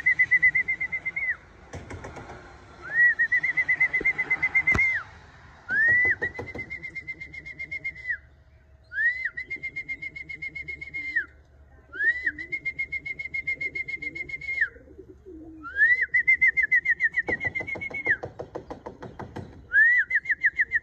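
A person's trilled whistle, repeated about seven times in one-to-two-second calls, calling homing pigeons in to land at the loft. Pigeons coo faintly in between.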